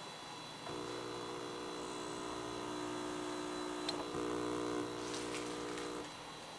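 Steady electronic buzz of several held tones while an MSX computer restarts, starting just under a second in and cutting off about six seconds in, with a single click about four seconds in.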